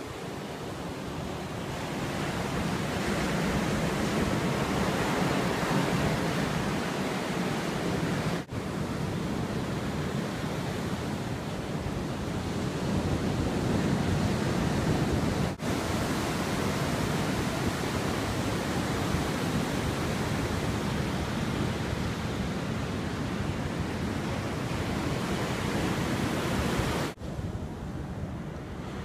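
Ocean surf washing on a beach, a steady rushing noise with a low rumble, partly wind on the microphone. The sound cuts out for an instant three times and is quieter after the last break near the end.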